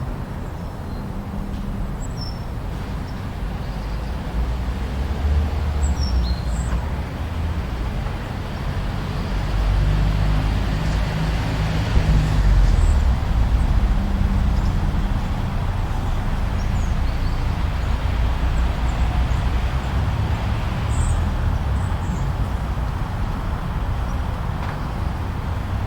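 Steady blizzard wind with a deep rumble that swells in the middle, and a few short high bird chirps on top.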